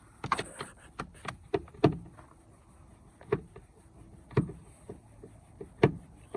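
About a dozen irregular sharp clicks and knocks of hand tools and plastic door-trim parts being handled while the door panel is taken apart.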